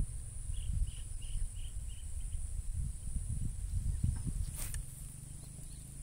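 A steady high insect drone with low rumbling noise on the microphone. A quick run of about six short chirps comes in the first two seconds, and there is a brief rustle just before five seconds in, after which the rumble drops away.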